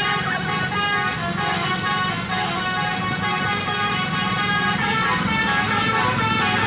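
Basuri 'telolet' multi-trumpet musical horn on a bus, the roof-mounted trumpets sounding several notes together in a long, continuous blast that shifts in pitch now and then, over the low running of the bus's engine.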